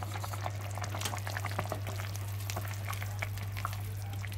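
Thick tomato curry sauce bubbling at a simmer in a stainless-steel pot, with many small scattered pops over a steady low hum; a wooden spoon begins stirring it near the end.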